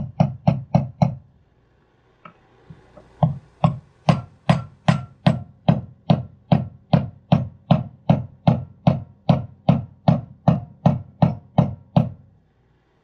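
A mallet tapping a punch in rapid, even strikes, about three or four a second, driving a cap plug into the rear signal oil pipe passage of a 200-4R transmission valve body to block it off for a shift kit. A first run of taps stops about a second in. After a pause with a couple of light taps, a long steady run goes on until about a second before the end.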